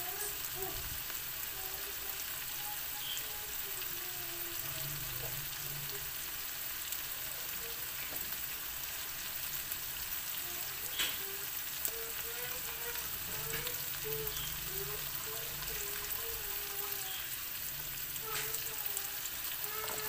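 Ground pork, onion and garlic sizzling in oil in a wok: a steady, even frying hiss. There is little spattering because the pork is lean. Two sharp clicks come a little past halfway.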